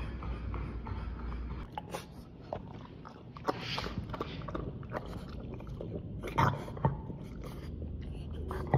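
French bulldog lapping water from the trough of a portable dog water bottle: a run of irregular wet clicks and slurps, with a couple of louder ones about six and a half seconds in.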